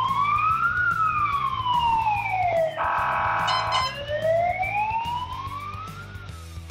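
A siren wailing in slow rising and falling sweeps, broken about three seconds in by a second or so of a steady, horn-like tone, over background music. The siren fades near the end.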